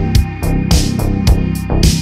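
Background electronic music with a steady beat of drum hits and a bass line.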